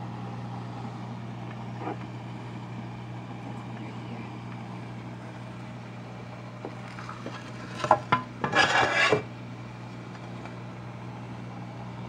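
Steady low hum of reef aquarium equipment. About eight seconds in there is a loud clatter and rustle lasting just over a second.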